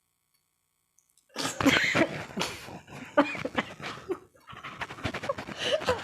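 People giggling and laughing breathily, starting suddenly about a second and a half in after a silence.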